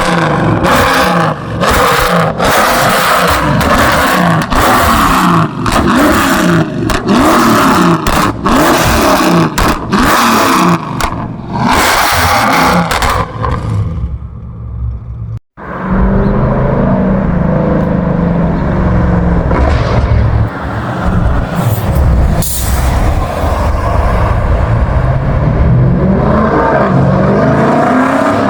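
2018 Dodge Scat Pack's 6.4-litre HEMI V8 on a Stage 2 tune, revving up and down with a rapid string of exhaust pops and crackles for about the first half. After a short break it runs steadily, rising in pitch near the end as it accelerates.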